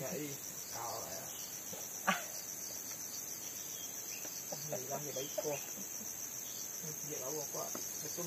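Forest insect chorus, a steady high-pitched trill that runs on without a break, with faint voices murmuring in the background and a single short click about two seconds in.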